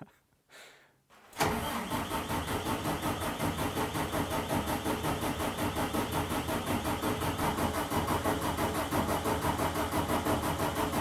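24-valve 5.9 Cummins inline-six diesel turned over by its starter, engaging about a second and a half in and cranking steadily in an even rhythmic chug, then stopping. It never fires or picks up speed: the engine is getting no fuel, which the owner later traces to a dirty crankshaft position sensor connector that left the computer reading zero RPM.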